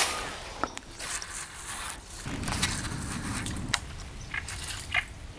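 Faint outdoor ambience with scattered small clicks and ticks, and a short low rumble in the middle.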